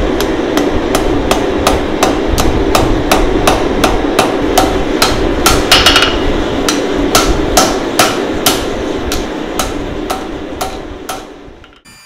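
Hand hammer striking a glowing twisted steel bar on an anvil: about three sharp, ringing blows a second over a steady rushing noise. The blows weaken and stop near the end.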